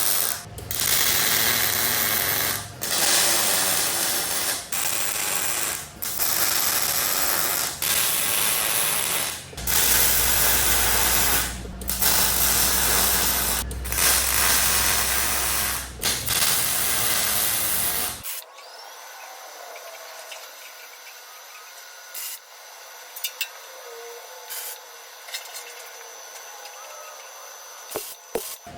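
Arc welding in a string of short runs, a second or two of steady crackle each with brief pauses between, as legs are welded onto a steel welding cart. About two-thirds of the way in it drops to a much quieter background with a few faint clicks.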